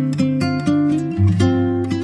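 Background music: acoustic guitar strumming chords that change every fraction of a second.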